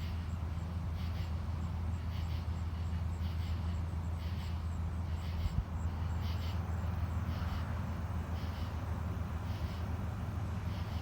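Short high chirps repeating about once a second, with a faint faster high ticking, over a steady low hum: an animal-like night chorus.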